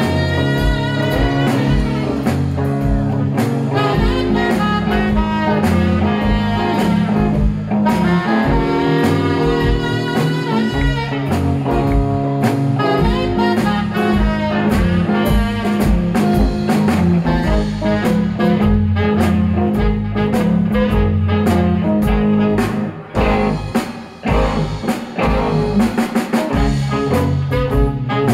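Live blues-jazz band playing an instrumental: a tenor saxophone carries the lead over electric guitars and a drum kit. A little past two thirds of the way through, the band drops back briefly to a few short hits, then comes back in.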